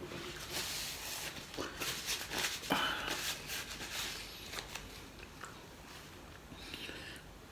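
Paper napkin rustling and crinkling as hands are wiped with it, in short irregular bursts that die away about halfway through.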